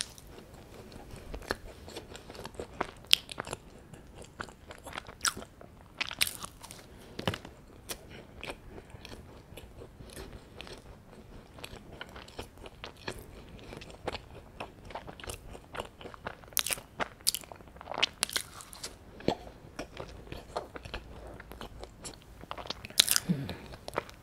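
Close-miked chewing of a flaky pie manju pastry with red bean paste, the crisp layered crust giving irregular sharp crackles between softer mouth sounds, with louder crunches around two thirds of the way through and near the end.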